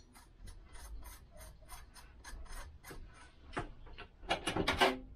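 Metal threads of an M7 stud and its nuts being turned by hand, grating in quick, even strokes of about five a second, with a louder burst of rasping near the end.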